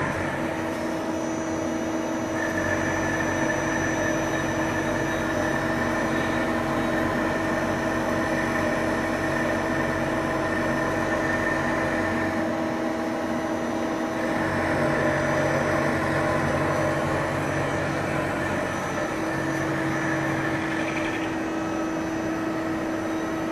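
Kitamura Bridge Center 8 CNC machining center running with a steady mechanical hum and several held whining tones. The highest whine stops about halfway through and comes back a couple of seconds later.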